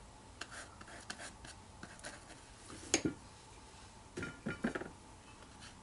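Paintbrush clinking against a ceramic palette plate: one sharp click, then a short run of ringing clinks a little later. Before them comes faint scratching of a brush scrubbing on watercolour paper.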